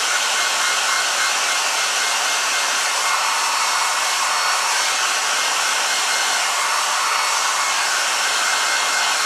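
Handheld electric hair dryer running steadily, an even rush of blowing air with a faint high whine, blown over a squirrel mount's damp fur to dry it.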